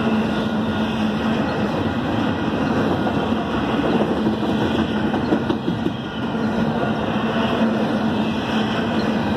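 Double-stack intermodal freight train cars rolling past, with the steady rumble and rattle of steel wheels on the rails and a constant low hum running through it.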